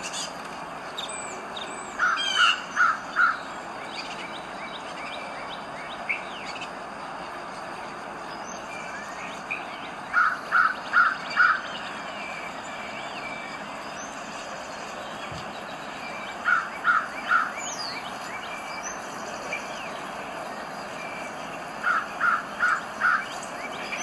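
A bird gives short runs of three or four loud calls, four times over, while smaller birds chirp faintly over a steady background hiss.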